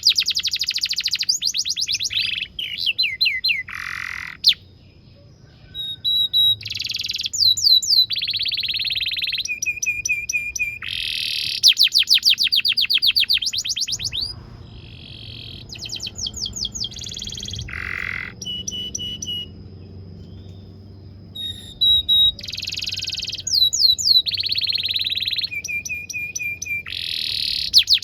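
Male canary singing a long song: fast rolling trills of rapidly repeated notes alternating with short clear whistled notes and brief pauses.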